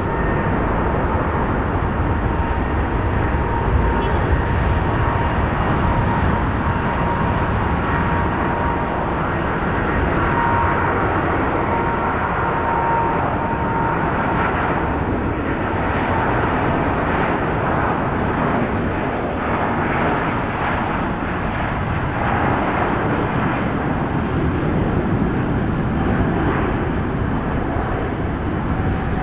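Jet airliner's engines running loud and steady, a deep rumble with a thin whine that holds through the first half and then fades.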